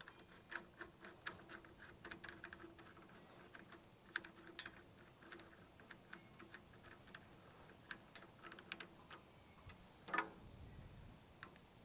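Faint, irregular small clicks and ticks of hand work on a sawmill's ruler pointer as the old pointer is taken off, with one louder clink a little past ten seconds.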